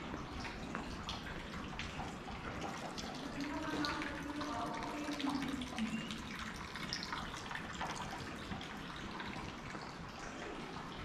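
A thin stream of water from a stone wall fountain's spout trickling and splashing steadily into its basin. A voice is heard briefly in the middle.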